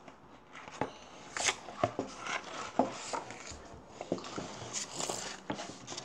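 Pages of a paperback picture book being flipped and handled by hand: irregular paper rustles and sharp taps, beginning about half a second in.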